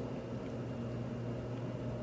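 Room tone: a steady low hum under a faint hiss.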